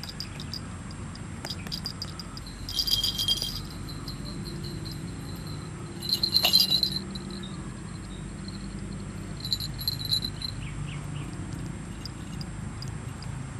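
High, chattering bird calls in three short bursts, the middle one the loudest, over a quiet rural background; a brief knock comes in the middle of the loudest burst.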